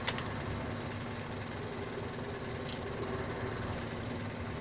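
Heavy truck's diesel engine running steadily, heard from inside the cab. Two sharp clicks come right at the start, and a fainter one about three seconds in.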